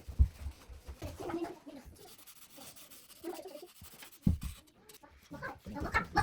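Chickens clucking in short, soft bursts, busier near the end, with two low thumps, one right at the start and one about four seconds in.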